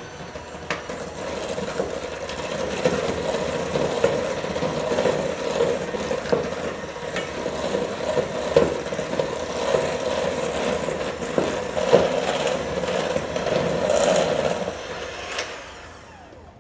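Electric hand mixer running steadily, its beaters churning stiff spiced cookie dough as flour is worked into the butter and sugar. A few sharp clicks come through, and the motor winds down near the end.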